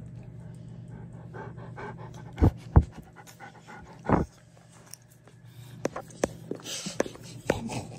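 A dog panting close to the microphone. There are two loud thumps about two and a half seconds in, another just after four seconds, and a run of sharp clicks near the end.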